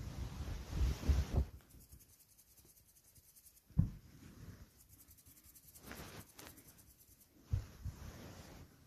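Close rubbing and rustling on a shaggy rug, with three dull thumps.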